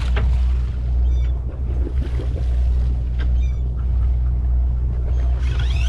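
Boat engine droning steadily, with water washing along the hull. Short high chirps cut in about a second in and again just past three seconds, and a wavering high call starts near the end.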